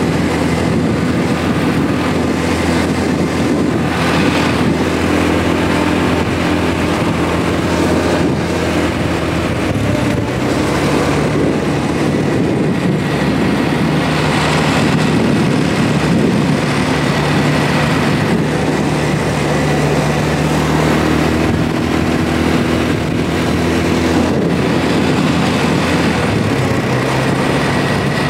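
ATV engine running at road speed, heard from the rider's seat, its pitch shifting about ten seconds in and again near the end as it changes speed. Wind rushes steadily over the microphone.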